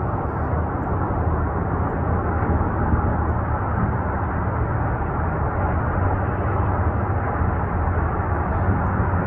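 Two distant UH-60 Black Hawk helicopters making a steady low rumble that keeps the same level throughout.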